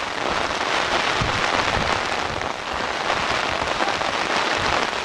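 Steady hiss of outdoor weather noise on the camcorder microphone, with a few low buffets a second or two in.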